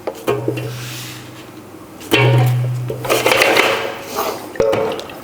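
Air fryer basket drawer being pulled out and handled: clicks and clatter, with a low hum that gets louder after a sharp click about two seconds in and stops around three seconds.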